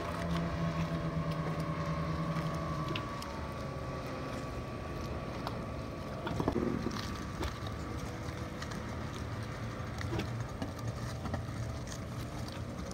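Speedboat engine running steadily as the boat cruises across open water; its hum drops to a lower note about three seconds in. A brief louder noise about six and a half seconds in.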